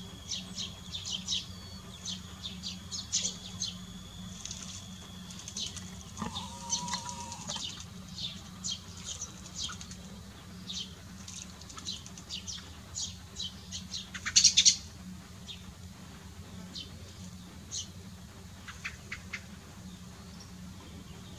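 Small birds chirping in many short, high calls, with a thin steady whistle that stops about four seconds in. About fourteen seconds in comes a brief, louder flurry of splashing and wing-flapping from a young blackbird bathing in shallow water.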